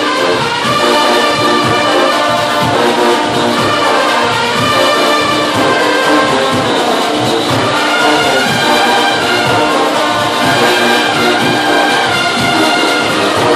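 Junkanoo band brass section (trumpets and trombones) playing a tune over a steady, loud drum beat.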